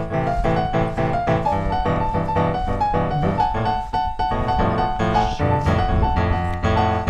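Background piano music: a steady run of notes over a low accompaniment.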